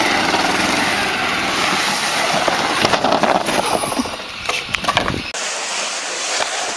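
Golf cart driving, then a cluster of knocks and clatter as it tips over onto its side. After an abrupt cut a little past five seconds in, a thinner hiss of a cart on wet pavement with more knocks.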